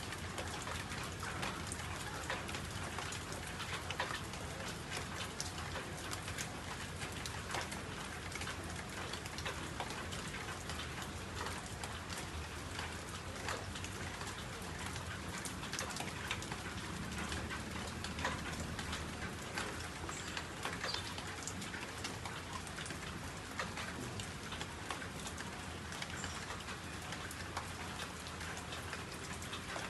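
Steady rain, a dense patter of many small ticks over an even hiss.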